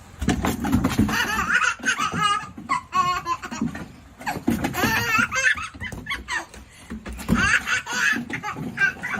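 Hearty human laughter in repeated bursts, with a quick run of laughing pulses two to three seconds in.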